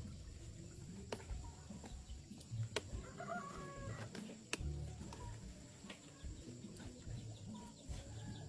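A chicken clucking faintly, with a short call about three seconds in, over irregular low rumbling and a few sharp clicks.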